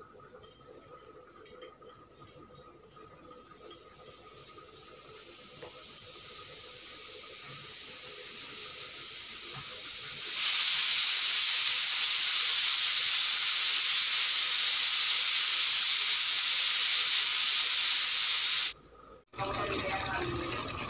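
Pressure cooker whistling as it reaches pressure and vents steam. The hiss builds slowly, jumps to a loud, steady, high hiss about ten seconds in, and cuts off suddenly near the end.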